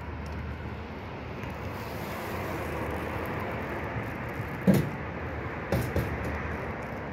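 Steady street background noise that swells gently, as a car passing, with three sharp knocks: one a little past halfway through, the loudest, then two close together about a second later.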